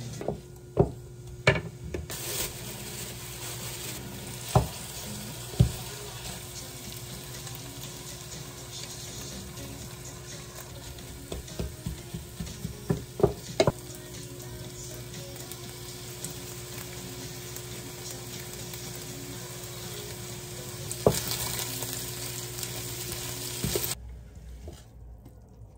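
Fried rice sizzling in a nonstick frying pan while a wooden spatula stirs and scrapes it, knocking sharply against the pan several times, in a cluster about halfway through. The sizzling stops near the end as the pan is tipped over a plate to serve.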